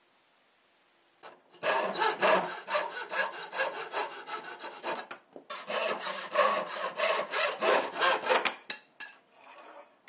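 Hacksaw cutting through a 3/8-inch square wooden dowel with quick back-and-forth strokes. The sawing starts about a second and a half in, stops briefly about five seconds in, and grows faint near the end.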